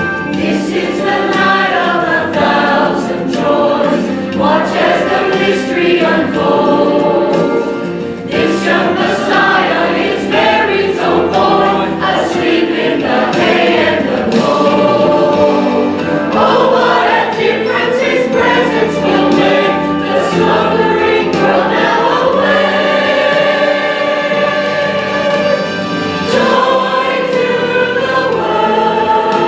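Church choir singing a Christmas cantata.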